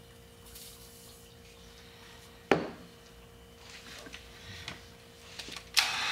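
A sharp knock about two and a half seconds in and a few light clicks over faint room hum, then near the end an electric heat gun switches on and runs with a steady rushing blow, heating the wheel hub to free the bearing retainer.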